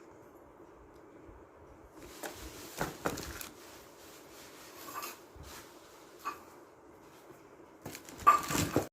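Handling noises: a few short knocks and rubs over a faint steady hiss, with the loudest cluster near the end.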